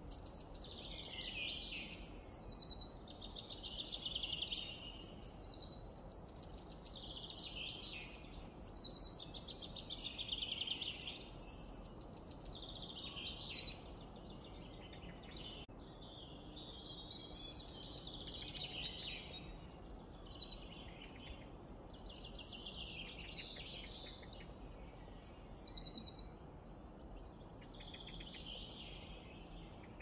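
Small songbirds singing: short phrases of high chirps and quick trills, one after another every couple of seconds.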